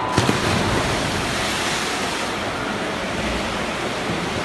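Swimmers hitting the water off the starting blocks, then a steady wash of splashing as several swimmers race butterfly in the pool.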